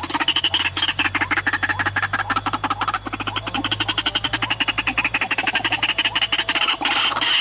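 White-breasted waterhen calling: a fast, unbroken run of harsh, croaking notes, about ten a second.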